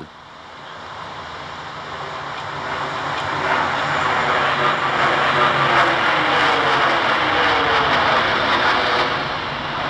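Jet engines of a low-flying airliner (American Airlines Flight 11, a Boeing 767) passing overhead: a rising roar that swells over several seconds, its pitch falling as it goes by.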